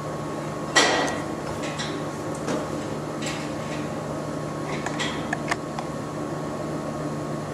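Steady low hum of room or machine noise with a few scattered knocks and clicks, the loudest a sharp clatter about a second in.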